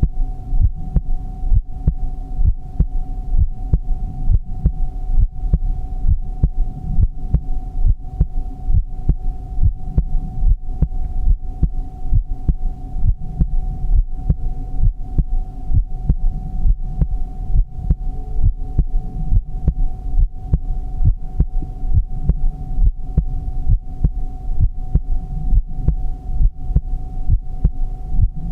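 Heartbeat sound: regular, evenly spaced lub-dub beats repeating steadily throughout, over a constant low hum.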